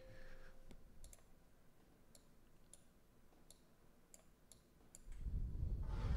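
Computer mouse clicking: single faint clicks about half a second to a second apart. A louder low rumble comes in about five seconds in.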